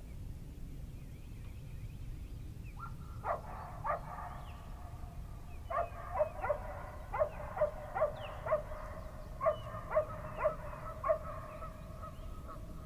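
Geese honking: a run of sharp, pitched honks starting about three seconds in, coming roughly two a second in the middle and thinning toward the end, over a steady low rumble.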